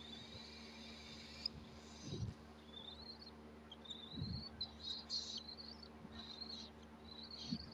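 Cockatiel chirping in a series of short, rising peeps and raspy calls, repeating every second or so, with a few low thumps in between.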